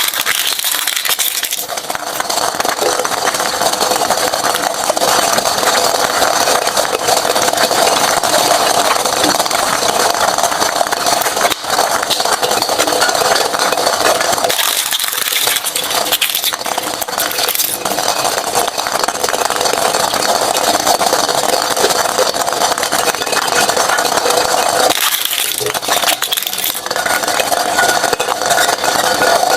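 Shredding machine running and chewing through items fed into it: a loud, continuous grinding rattle that thins briefly a few times.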